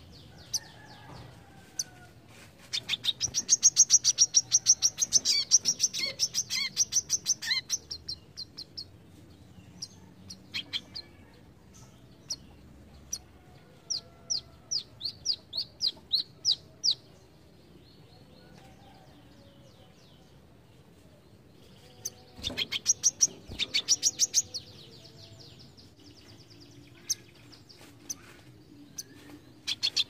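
Male brown-throated sunbird (kolibri kelapa) singing: loud bursts of rapid, high, chattering trills, about 3 to 8 seconds in and again around 22 to 24 seconds. A slower run of separate sharp notes, about three a second, comes around the middle, and single notes fall in between.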